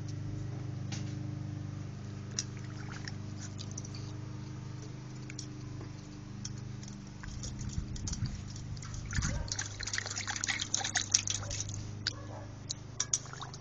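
A Lhasa Poo dog pawing and splashing the water in her bowl: scattered small splashes and drips at first, then a busy flurry of sloshing and splashing for several seconds in the second half.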